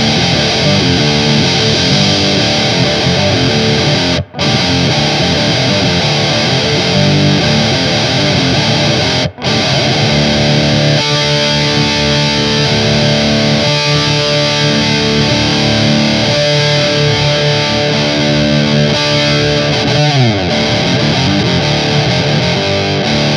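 Electric guitar in drop D, bridge humbucker, played through a Digitech Grunge distortion pedal, chugging a heavy riff with two brief full stops. Partway through, the pedal's gain knob is turned down toward a low-gain setting and the notes come through clearer, and near the end a note slides down the neck.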